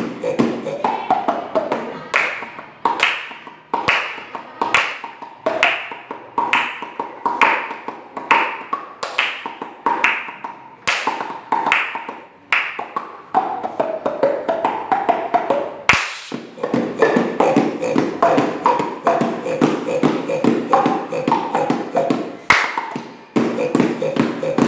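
Rhythmic tapping, about one and a half beats a second, with short tones between the beats.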